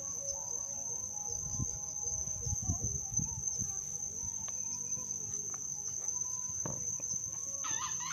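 Fowl clucking and calling faintly over a steady high-pitched insect drone, with a louder call near the end.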